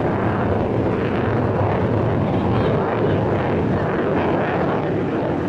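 Jet noise from a Boeing F/A-18F Super Hornet's twin turbofan engines in flight: a loud, steady rush.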